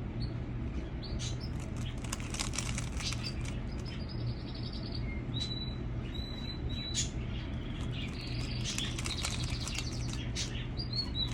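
3x3 Rubik's cube being turned in quick runs of clicks and rattles, with short pauses between runs. Birds chirp with short high notes in the background, and a low hum runs underneath.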